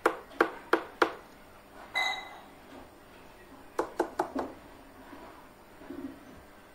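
A run of four sharp taps or knocks within about a second, a single short ringing clink about two seconds in, then another run of four quick taps about four seconds in.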